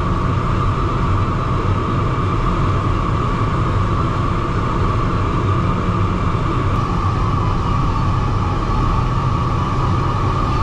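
Steady rush of air around the DG303 glider's canopy in flight, heard from inside the cockpit: a low rumble with a steady whistling tone above it.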